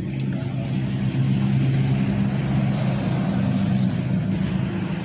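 Steady rain hiss over the water, with the low hum of an engine running. The hum grows louder about a second in and eases near the end.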